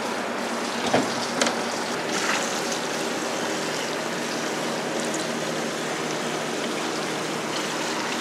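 Butter and cooking juices sizzling steadily around baked trout fillets in a hot baking dish just out of the oven, with a couple of light knocks about a second in.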